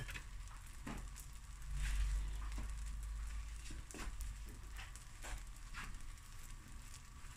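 Bread slices frying lightly in olive oil in a stainless steel pan: a faint, steady sizzle with scattered soft clicks and knocks. Near the end a wooden spatula touches the bread and pan.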